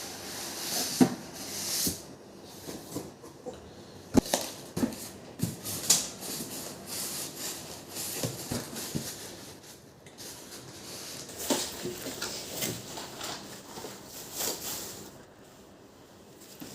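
Handling noise: a string of irregular clicks, taps and knocks, the sharpest about a second in and about four seconds in.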